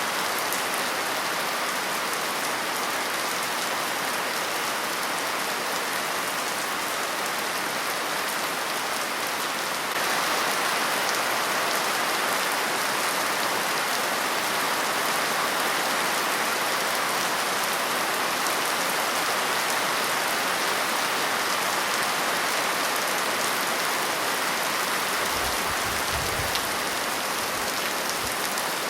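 Steady rain falling, an even hiss of drops that grows slightly heavier about a third of the way in. A brief low rumble comes near the end.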